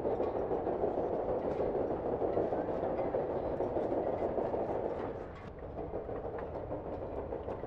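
Steam-engine sound effect running steadily: a churning rumble with light irregular clicks, dipping slightly in level a little past halfway.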